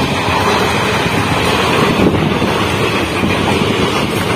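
Passenger train running at speed, heard from an open coach doorway: a steady rush of wheels rolling on the rails mixed with wind blowing across the microphone.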